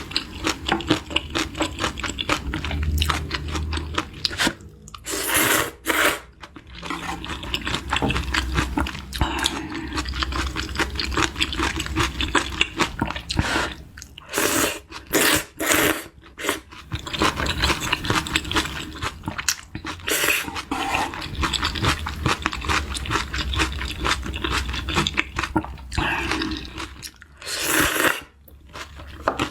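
Close-miked eating: steady wet chewing and crunching of food, with several louder, fuller noisy bursts at intervals.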